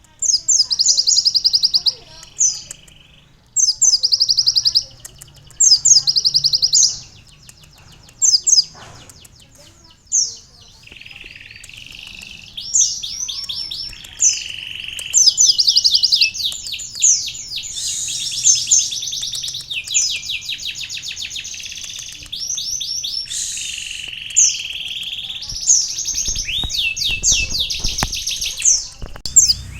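Konin sunbird singing a canary-style song of fast, high trilled phrases, each about a second long, mixed with buzzier, lower notes. The phrases come in separate bursts with short pauses at first, then run on almost without a break from about ten seconds in.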